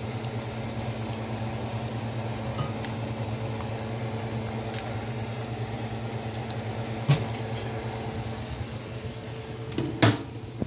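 Steady electric hum of a running kitchen appliance motor, with a few light clinks of a spoon against a bowl. The hum stops near the end, and a single sharp clatter follows.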